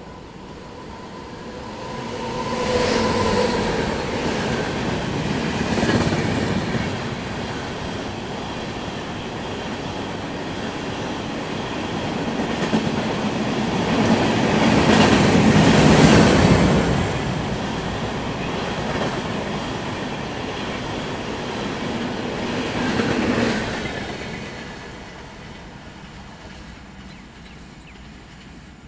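Indian Railways WAP-7 electric locomotive and its train of coaches passing at speed, wheels clattering over the rails. The noise builds about two seconds in, is loudest as the train goes by, and fades away near the end. A steady tone sounds over the first few seconds.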